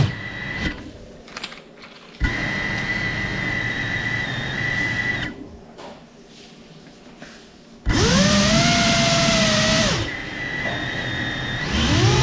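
Ducted brushless motors of a Cinelog 35 FPV cinewhoop drone whining under throttle, in stretches with lulls between: a steady whine for about three seconds, then after a quieter gap a louder burst whose pitch swings up and back down.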